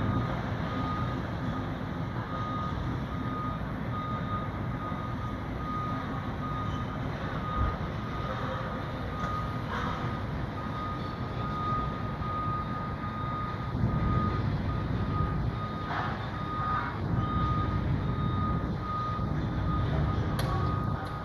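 Backup alarm on heavy demolition equipment, beeping steadily at one pitch over the low rumble of its diesel engine. A few sharp knocks come near the end.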